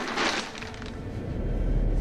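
Film horror sound design: a sudden sharp crash-like hit at the start, followed by a deep rumble that swells steadily louder.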